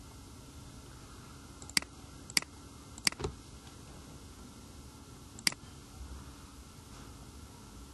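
Computer mouse clicking: five sharp clicks spread over a few seconds, two of them in quick succession, over a faint steady background.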